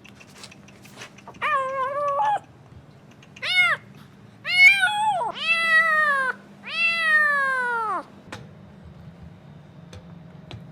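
A frightened stray kitten meowing loudly five times in quick succession; the later cries are long and slide down in pitch at the end.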